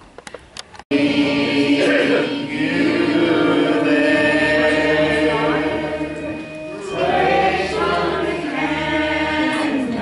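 Church choir singing a hymn with long held notes, starting suddenly about a second in after a few faint clicks.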